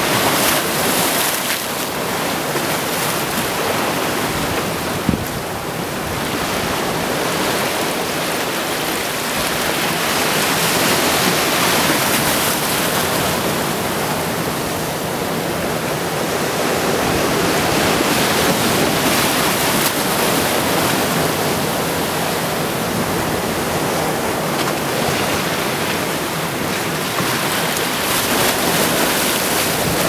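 Small sea waves washing in over sand and around granite boulders: a steady rushing wash that swells and eases every several seconds. One brief click about five seconds in.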